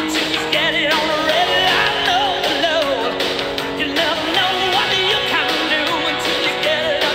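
Background music: a song with a singing voice over sustained instrumental notes.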